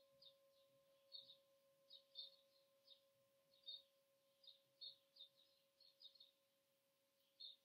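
Faint lingering ring of a struck metal singing bowl, two steady tones held through, while small birds chirp in short high calls every second or so.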